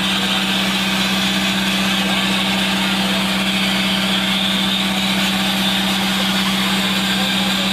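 Engine running steadily at an even pitch, with a steady hiss of the air-blasting hose over it as the buried oil pipe is cleaned.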